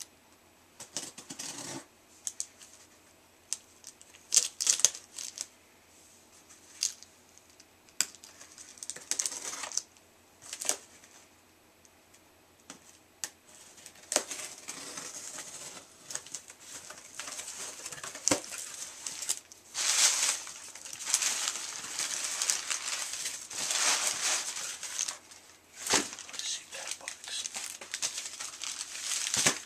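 Hands opening a cardboard shipping box and digging through its packing: scattered clicks, scrapes and rustles at first, then from about halfway a long stretch of crinkling and tearing.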